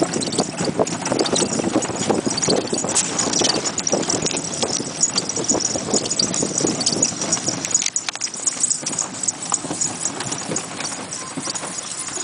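A pony's hooves clip-clopping on a sandy dirt track as it trots, pulling a small two-wheeled horse cart. The hoofbeats go a little softer about eight seconds in.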